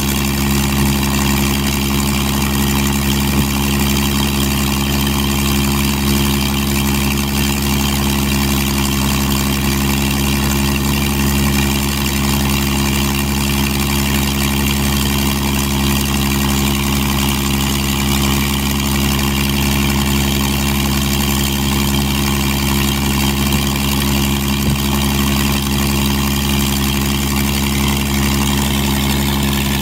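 Spitfire Mk XIV's Rolls-Royce Griffon V12 aero engine running steadily on the ground, its note even and unchanging throughout.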